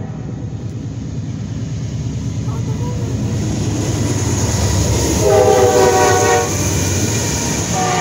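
Norfolk Southern freight train's diesel locomotives passing close by, their engine and wheel rumble growing louder. About five seconds in the lead locomotive sounds one loud multi-note air horn blast, just over a second long, and starts another near the end.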